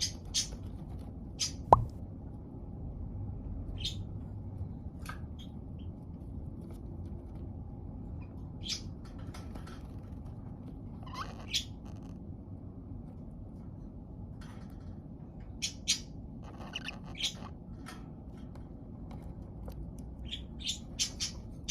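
Pet budgerigars giving short, scattered chirps and tweets, with quiet stretches between them. There is a single sharp click about two seconds in, and a low steady hum throughout.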